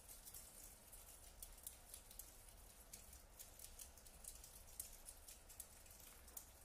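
Very quiet, scattered clicks and ticks from a new-music ensemble playing extended techniques, irregular and several to the second over a soft hiss.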